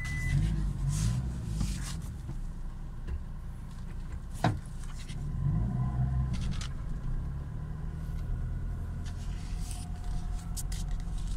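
A vehicle driving slowly over a dirt road, heard from inside its cabin: a steady low rumble of engine and tyres, with one sharp knock about four and a half seconds in and a few light rattles near the end.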